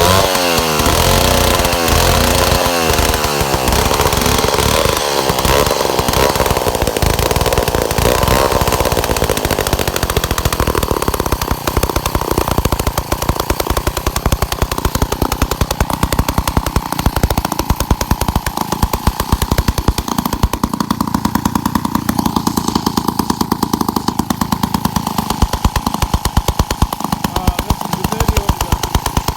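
Vintage Clinton D15 two-stroke chainsaw running on its first run in years, revved up and down repeatedly for about the first ten seconds, then settling into a steadier, lower-speed run with a fast, even beat.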